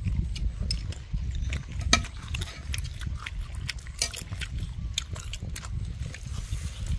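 Close-up eating sounds of a person chewing a mouthful of rice, with wet lip-smacking and many scattered sharp clicks.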